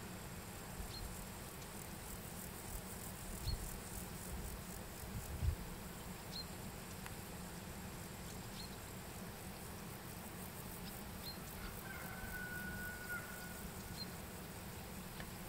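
Outdoor countryside ambience: a short, high chirp, like a small bird's call, repeats every two to three seconds, and a single held whistle-like note sounds about three-quarters of the way through. Under it runs a low rumble, with two brief thumps a little after the first quarter.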